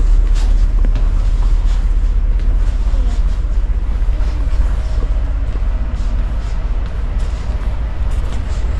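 Steady, loud low rumble of a Hurtigruten coastal ship under way, with a haze of noise over it.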